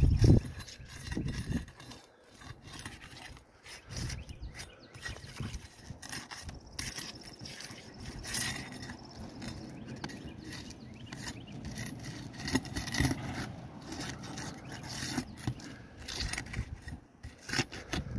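Flat metal pry bar scraping and prying under asphalt shingles, lifting the tabs loose, in many short, irregular scrapes and clicks. A low thump comes right at the start.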